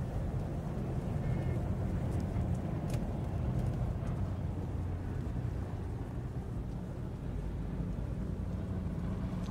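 Steady low rumble of background noise, with a few faint clicks, one about three seconds in.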